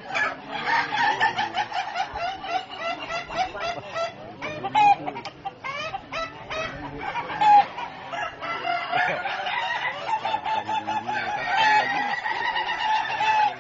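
Several ayam batuk ('coughing chicken') roosters crowing and calling over one another. Their crows break into fast runs of short, cough-like notes.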